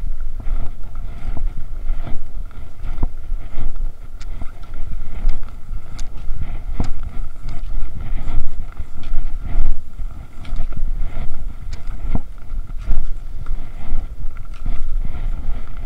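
Wind rumbling on the microphone, with irregular sharp clicks and swishes throughout, typical of cross-country skis and poles working a groomed snow trail.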